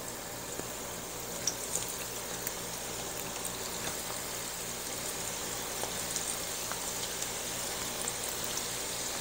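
Hot oil sizzling steadily around panko-breaded baby corn deep-frying in a cast-iron skillet, with small crackles and pops here and there.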